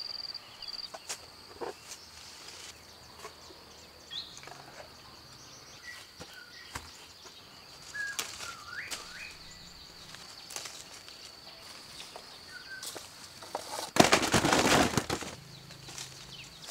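Rural garden ambience: a steady high thin whine in the background, a few small bird chirps and scattered light clicks. About fourteen seconds in, a loud rustle of leaves and branches lasts about a second and a half as the sapodilla tree is climbed.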